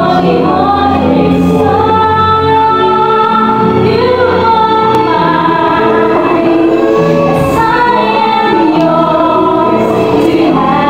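A woman singing a slow ballad into a microphone over musical accompaniment, holding long notes that glide between pitches.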